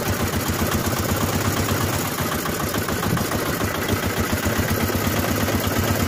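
Diesel engine of a small river ferry boat running steadily, with an even, fast pulse and a low hum.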